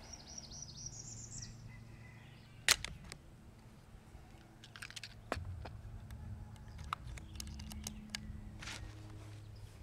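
Quiet outdoor ambience: a bird chirps a quick rising series near the start. A sharp click about two and a half seconds in is the loudest sound, followed by a few fainter clicks over a low steady hum.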